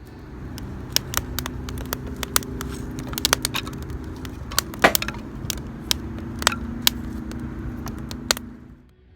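Wood campfire crackling, with many sharp, irregular pops over a steady low rumble.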